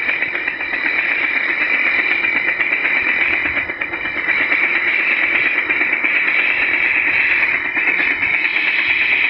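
Recorded UH-1 Huey helicopter engine and rotor sound played by an RC sound module through a small bare speaker, running steadily with a brief dip a little under four seconds in.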